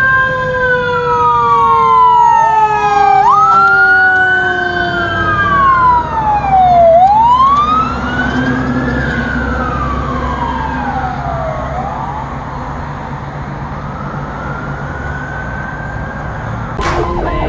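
Several fire apparatus sirens wailing at once, each tone rising and falling over a few seconds and overlapping the others, over the low rumble of truck engines. Right at the end a sudden steady tone cuts in.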